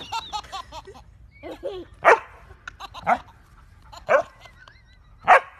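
Dog barking single barks, four in all, about a second apart, with a baby laughing between the barks.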